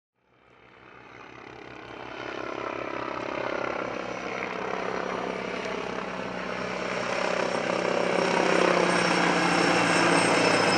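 T129 ATAK attack helicopter flying close by: the beat of its rotor blades together with the whine of its twin LHTEC CTS800 turboshaft engines. The sound fades in from silence over the first few seconds and then holds steady, the high engine whine growing clearer near the end.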